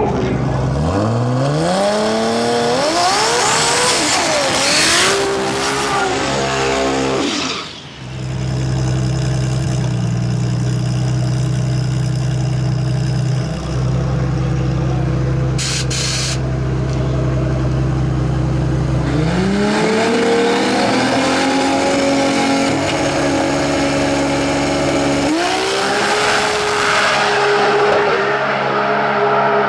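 Drag race car launching and accelerating hard, its engine pitch climbing through several gear changes. Then a steady, low-pitched engine drone for about eleven seconds. Near the end a second car launches and pulls up through the gears.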